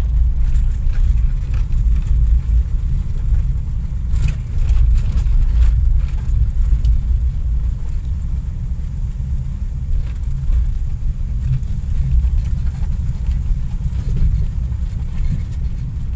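Interior drone of a vehicle driving slowly on an unpaved track: steady low engine and tyre rumble, with a few light knocks and rattles from the rough surface.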